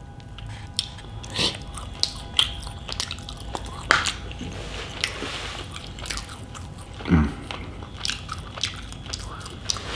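Close-up mouth sounds of a person chewing a mouthful of food: wet smacks and soft crunches at irregular intervals, with a short low hum about seven seconds in.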